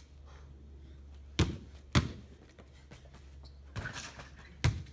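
Basketball bounced twice, then a clatter at the rim as it is dunked about four seconds in, and the ball hits the ground once more just before the end.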